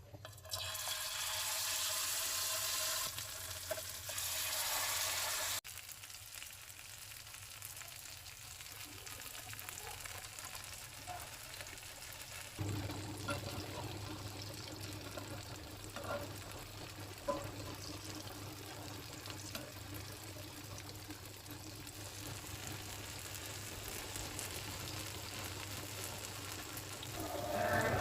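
Raw-banana fritters deep-frying in hot oil with a steady sizzle, loudest for the first five seconds or so and then settling, with a few light clicks.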